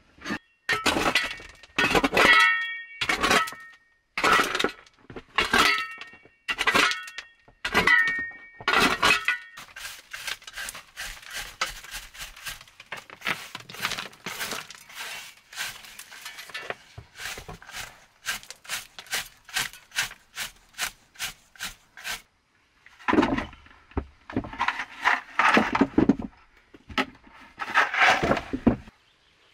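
Hard scrubbing of a rough limestone cave wall with a stiff plastic brush, in quick even strokes, two or three a second. Before it come about ten seconds of sharp knocks with a ringing, stony tone, and near the end a few heavier scrapes.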